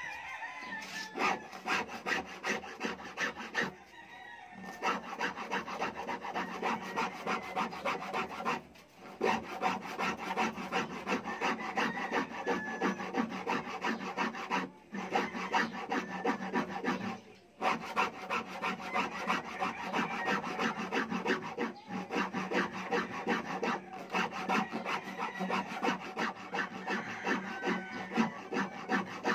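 A round file rasping the wooden edge of a speaker-cabinet cutout, widening the hole to fit a horn tweeter. It makes quick back-and-forth scraping strokes that stop briefly several times.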